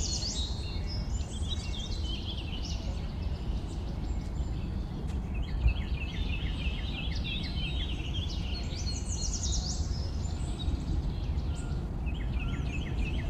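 Green bee-eater calls: quick runs of short, high chirping notes, heard several times in the middle and again near the end, over a steady low rumble of wind.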